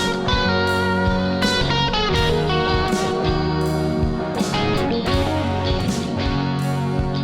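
Intro music: a rock-style band track led by electric guitar, with a steady drum beat.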